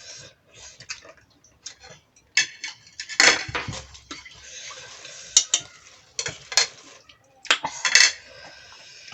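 Eating utensils clinking and scraping against plates and bowls during a meal, in irregular sharp clinks with a stretch of scraping in the middle.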